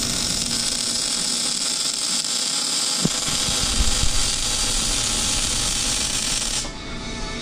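Arc welder, most likely MIG, crackling and hissing steadily as exhaust piping is welded under a car; the arc cuts off near the end. A single knock is heard about three seconds in.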